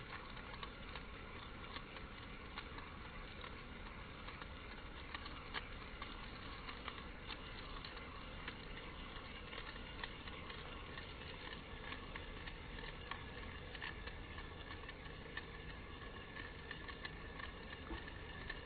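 Two stacked fidget spinners spinning in opposite directions on their ball bearings: a faint, steady whir with scattered light ticks.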